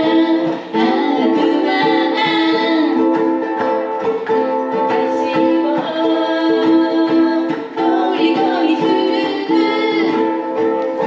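Three ukuleles strumming while voices sing a pop melody together.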